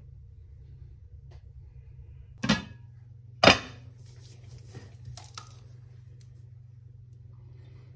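Two sharp knocks of kitchenware being set down, about a second apart, the second louder, followed by faint scrapes and clicks. A steady low hum runs underneath.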